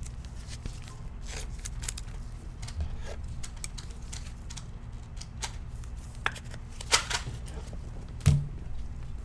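Football trading cards being handled and flicked through by hand, with light scattered rustles and clicks and one thump about eight seconds in.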